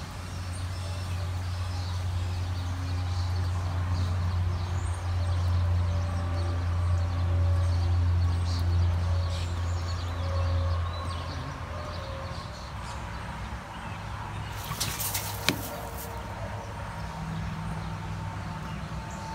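Outdoor ambience: a low steady rumble that fades out after about eleven seconds, with birds chirping faintly and one sharp click about three-quarters of the way through.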